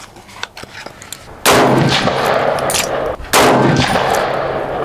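Two rifle shots about two seconds apart from an AK-47 with a milled receiver firing 7.62x39 Igman 123-grain ammunition, each with a long echo trailing after it.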